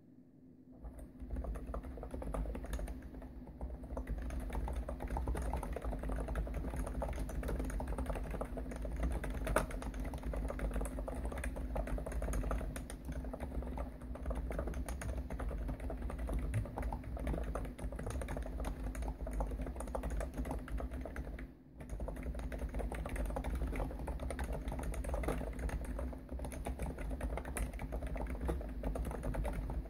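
Continuous fast typing on a Hansung GTune CHL5 electrostatic capacitive (Topre-style) keyboard with 55 g switches and TH keycaps, starting about a second in with a brief pause about two-thirds of the way through. The desk rings with a low hum under the keystrokes.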